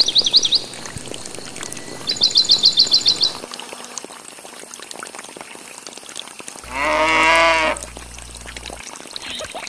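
Water trickling steadily, with two rapid high bird trills in the first three seconds and, about seven seconds in, a single bleat-like farm-animal call lasting about a second, its pitch wavering.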